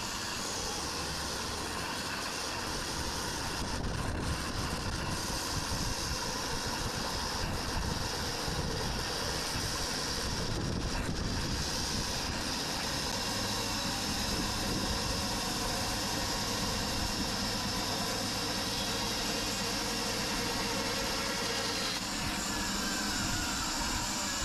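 Sawmill running with a steady engine and machine noise that starts abruptly. A low steady hum joins in partway through.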